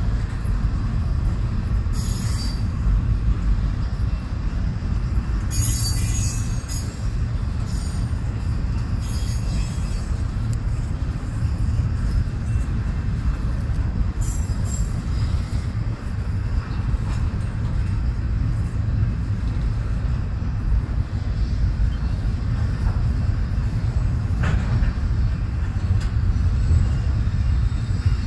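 Double-stack intermodal freight train rolling past: a steady low rumble of wheels on rail, with several brief high-pitched wheel squeals in the first half.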